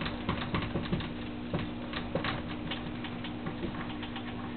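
Dry-erase marker writing on a whiteboard: quick, irregular taps and scratchy strokes as letters and bonds are drawn, over a steady low hum.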